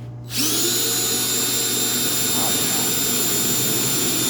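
An electric power tool spins up about half a second in and runs at a steady high whine.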